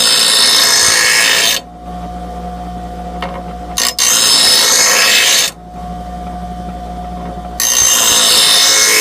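Grinder motor running steadily while a steel mower blade is pressed against the spinning grinding wheel in three passes, each a loud grinding rasp lasting about two seconds, with the motor's steady hum between them.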